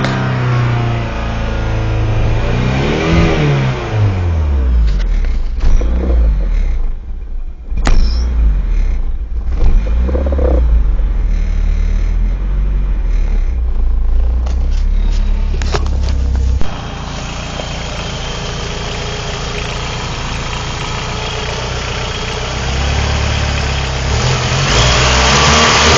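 1995 Mitsubishi Eclipse GST's turbocharged four-cylinder engine running at a rough idle. It revs up and back down a few seconds in, then runs unevenly with a few sharp knocks. It drops suddenly to a steadier note about two-thirds of the way through, and rises again near the end.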